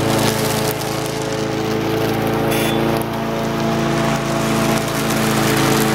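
Small walk-behind lawn mower engine, converted to run on propane, running steadily under load while the mower is pushed across the grass, with a steady hiss over the engine note.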